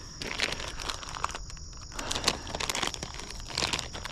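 Plastic Berkley PowerBait bait package crinkling and rustling in the hands as it is handled, in irregular crackles.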